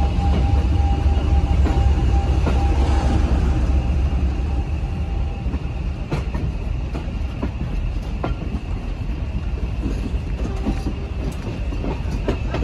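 Two English Electric Class 40 diesel locomotives pulling a train away, heard from an open carriage window: a deep engine rumble with a steady high whistle, easing after about five seconds. From about six seconds in, wheels click over the rail joints.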